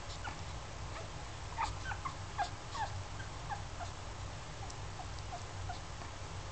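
Newborn schnauzer puppies squeaking and whimpering: a flurry of short, high squeaks in the middle, then a few fainter scattered ones, over a steady low hum.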